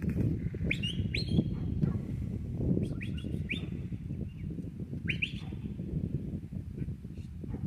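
Bird calls: short high chirps that sweep quickly upward, some holding briefly at the top, in a few clusters. Under them is a steady low rumble of wind on the microphone.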